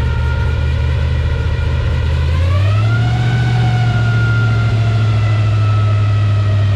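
Tour boat's motor running under way. Its pitch rises a little over two seconds in as it speeds up, holds steady, then begins to drop just before the end.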